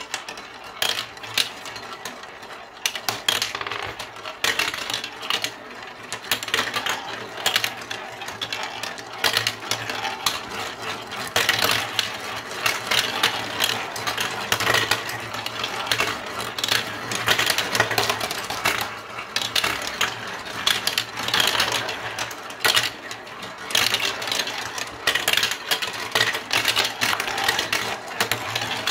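Marbles and plastic balls rolling and clattering down a plastic marble run's chutes, funnel and curved tracks: a steady stream of clicks and rattling.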